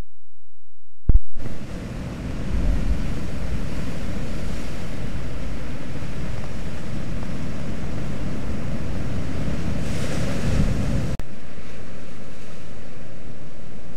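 Atlantic surf crashing and surging among lava rocks, with wind buffeting the microphone as a low rumble. It starts abruptly after a sharp click about a second in, and drops out for an instant near the end.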